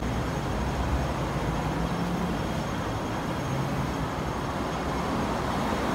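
Steady road traffic noise: a continuous low rumble and hiss with no distinct events.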